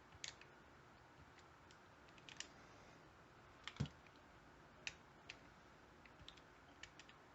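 Sparse light clicks and taps of hand work on a shrink-wrapped lockpick handle, its rough edge being smoothed down, with one louder knock about four seconds in.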